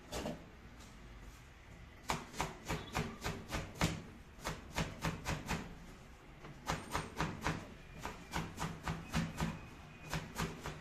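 Chef's knife chopping cabbage on a plastic cutting board: quick, even knife strokes about five a second, in runs broken by short pauses, starting about two seconds in.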